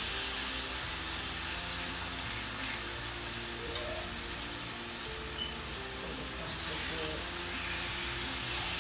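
Raw chicken breasts frying on a hot, oiled electric griddle: a steady sizzling hiss as the pieces are laid down with tongs, with a few faint clicks.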